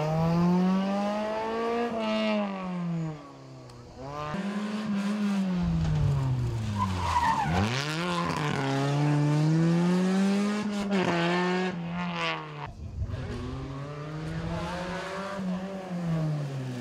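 Suzuki Swift rally car engines revving hard as the cars pass one after another, the engine note rising and falling again and again with acceleration, braking and gear changes. A short tyre squeal comes about seven seconds in.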